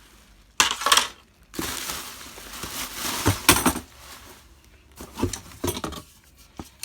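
Crinkling and rustling of packaging as ceiling fan blades are unpacked and handled, with a few light knocks.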